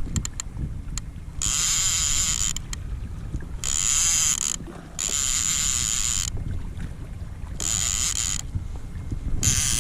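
A high mechanical whirring in six short bursts of about a second each, with brief pauses between them, over a steady low rumble of wind on the microphone; a few sharp clicks come shortly after the first pause.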